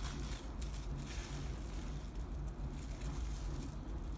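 Plastic cling wrap crinkling in irregular bursts as it is peeled off a log of cookie dough, over a steady low hum.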